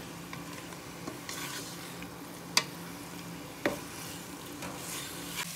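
Marinated fish pieces frying in oil in an aluminium pot, stirred with a wooden spatula, with a steady sizzle and two sharp knocks of the spatula against the pot about two and a half and three and a half seconds in.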